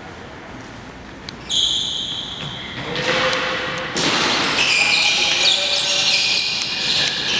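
Basketballs bouncing and sneakers squeaking on a hardwood gym floor, echoing in a large hall. About one and a half seconds in, a loud high squeal is held for about a second and a half, and from about four seconds in the bouncing and short squeaks get busier.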